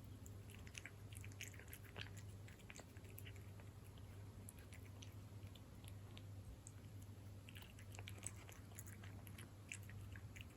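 Cat chewing and lapping wet cat food (beef in jelly): faint, soft, wet smacking clicks that come in bunches, sparser in the middle, over a steady low hum.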